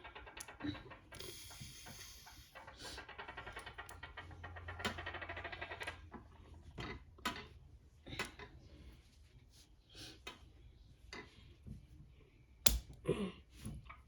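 Plastic construction-kit parts being handled and clicked together: a run of rapid fine ticking in the first half, then separate sharp clicks, the loudest near the end.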